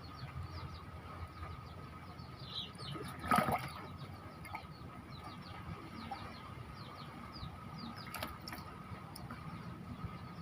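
Outdoor ambience of birds chirping in many short, quick downward notes over a steady faint high tone. A brief rustle or knock comes about three seconds in, and a smaller one about eight seconds in.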